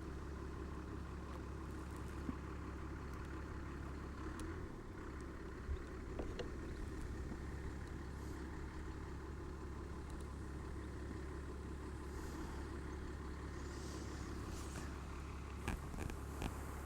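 A steady low engine-like hum with a few faint clicks.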